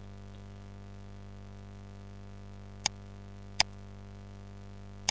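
Two sharp computer mouse clicks, about three seconds in and less than a second apart, over a steady low electrical hum.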